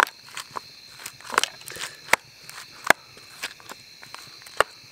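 Wooden stick mashing boiled potatoes in a small metal camping pot: irregular knocks, about ten in all, as the stick strikes down into the pot.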